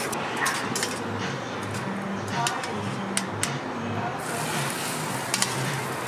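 Metal spatulas and tongs clinking and scraping on a hot flat-top griddle, with several sharp clicks over a steady sizzling hiss. About four seconds in the sound changes as shredded cabbage is set down on the griddle.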